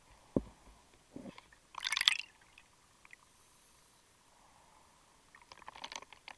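Underwater bubbling from a scuba diver: a dull knock, then two short bursts of crackling bubbles a few seconds apart, heard through the camera's housing.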